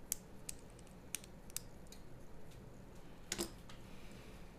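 Sparse light clicks and taps of small tools and parts being handled: a screwdriver and its bits set down and a DYS Samguk Wei 2207 brushless drone motor picked up and worked on by hand. The loudest click comes a little over three seconds in.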